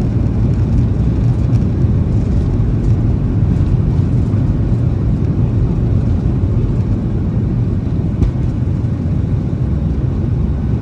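Boeing 737-800 cabin noise heard from a passenger seat: a steady low roar of the CFM56 jet engines and airflow, with one faint tick about eight seconds in.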